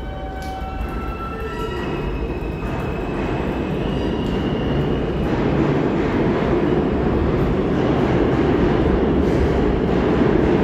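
New York City subway train running through the station tunnel. Rising electronic motor tones come in the first few seconds, under a steady rumble of wheels on rail that grows louder.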